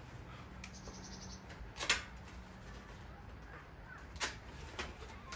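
A few sharp clicks and crackles from foam and plastic packing being pulled off a folding e-bike's handlebar, the loudest about two seconds in.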